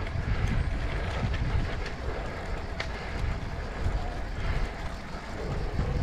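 Wind rumbling on the microphone of a camera riding along on a road bike, a steady low buffeting with a few faint clicks.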